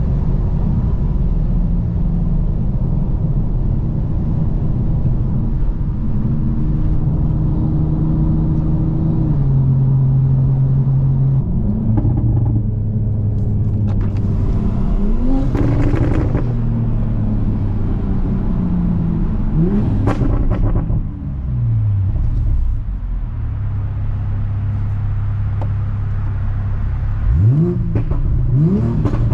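Toyota GR Supra's turbocharged 3.0-litre inline-six running through an HKS Hi-Power aftermarket exhaust. It cruises at steady revs, then the revs climb and drop back in short bursts of acceleration about halfway through, fall away as the throttle is lifted, settle steady again, and climb once more near the end.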